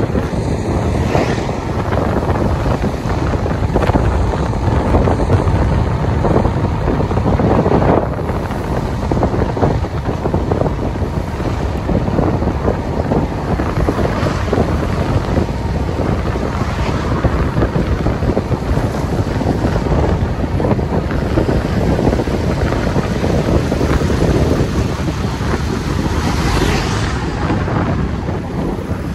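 Wind buffeting the microphone: a loud, steady rushing that is strongest in the low range.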